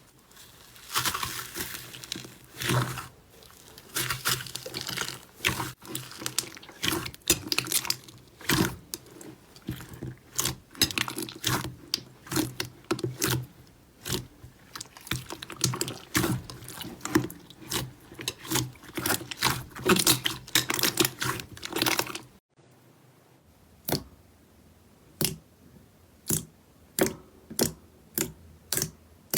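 Slime being squished and pressed by hand: a dense run of wet crackles, clicks and pops. After a cut about 22 seconds in, slower, separate sharp clicks follow, about one or two a second.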